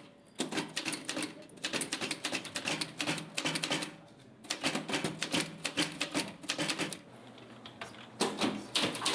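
Manual typewriter being typed fast: rapid runs of key strikes in four bursts, with brief pauses between them.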